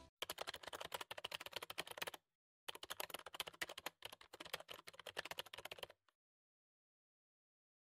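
Typing sound effect: rapid key clicks in two runs, with a half-second break about two seconds in, stopping about six seconds in.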